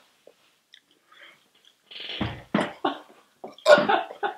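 A man coughing and blowing out sharply a few times, starting about two seconds in: a reaction to the burn of extremely spicy Samyang fire noodles.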